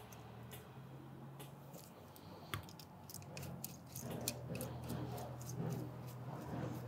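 Faint clicks and light scrapes of small metal parts as a trigger is fitted back onto a Graco Fusion PC spray foam gun and its pivot screw is turned with a screwdriver. The handling gets busier about halfway through, over a low steady hum.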